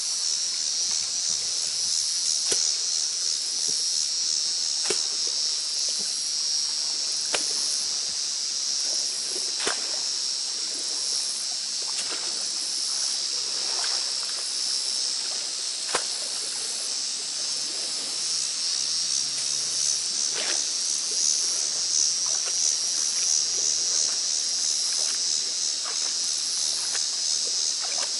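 A steady, high-pitched insect chorus with a fast pulsing trill. Scattered short clicks and light sloshing come from raking algae out of shallow water.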